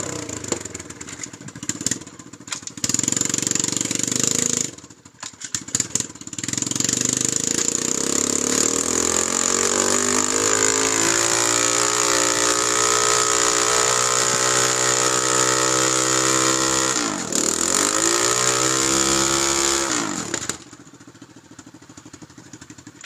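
110cc minibike engine revving hard through a burnout: a few choppy blips, then held at high revs with the pitch slowly climbing, one brief dip and pick-up, before it drops sharply to a low idle near the end.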